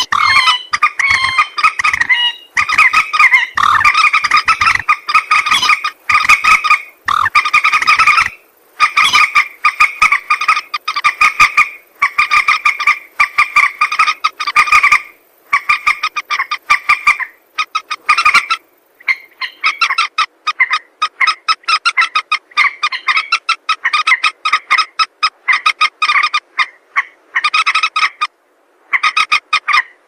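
Common moorhen calling, played as a hunting lure call: a few longer, wavering notes, then rapid runs of short repeated notes in bursts of a second or two with brief gaps, over and over.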